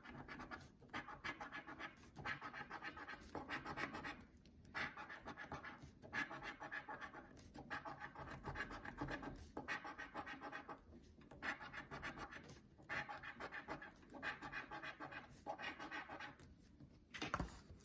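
A scratch-off lottery ticket being scratched: quick rasping strokes in short runs, with brief pauses between runs.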